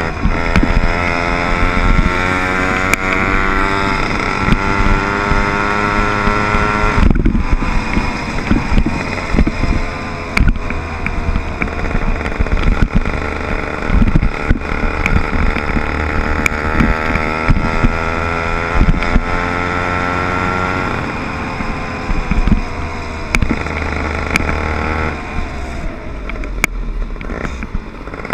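Small 60/80cc motorbike engine buzzing under way, its pitch climbing as it accelerates, dropping sharply about seven seconds in, climbing again, then falling off past the twenty-second mark and running lower near the end. Wind buffets the microphone, with scattered knocks from the ride.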